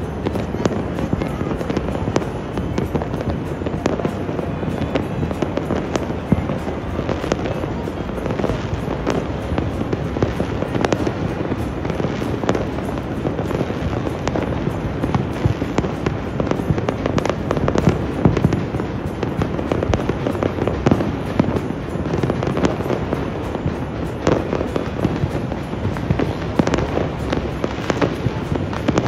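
Massed fireworks and firecrackers going off all across a city at once: a continuous dense crackle of many overlapping bangs and pops, with no pause.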